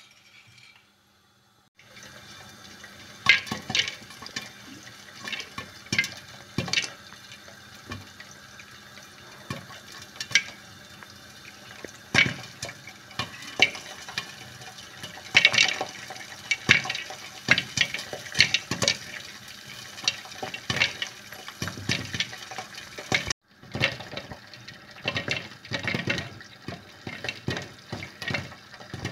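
Popcorn kernels popping in hot oil in a lidded pan: many sharp, irregular pops over a steady sizzle, starting about two seconds in.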